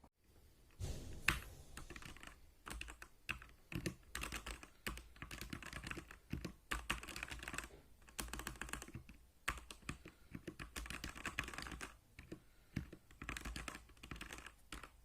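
Typing on a Rexus Legionare MX10 mechanical keyboard with red linear switches: rapid key clicks in bursts with brief pauses, starting about a second in.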